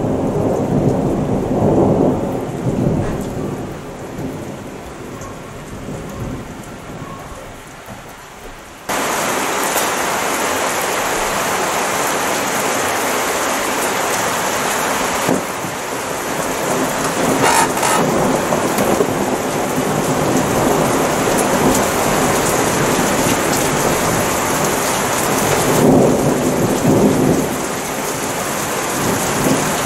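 Thunderstorm: a roll of thunder rumbles and fades under falling rain. About nine seconds in, heavy rain abruptly takes over with a loud, steady hiss, and another roll of thunder comes near the end.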